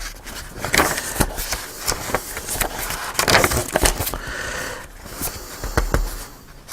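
Paper and stiff cardstock pages of a handmade journal being handled and turned: irregular rustling, flapping and light taps.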